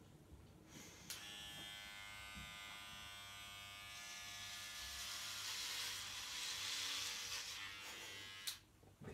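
Corded electric hair clipper buzzing steadily as it cuts through hair. It starts about a second in and stops with a click near the end.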